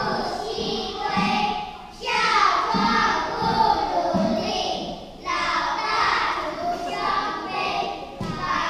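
Children singing, with short breaks about two and five seconds in.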